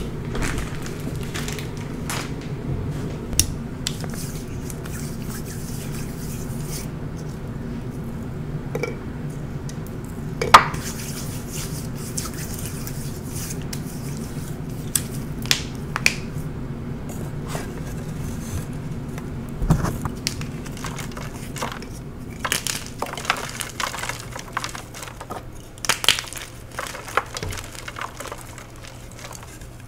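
Hands squeezing and crumbling soft, glitter-coated powdery blocks, giving scattered crunches and soft squishes over a steady low hum. One sharp crack comes about a third of the way in, and the crunches grow busier near the end as a block breaks up into powder.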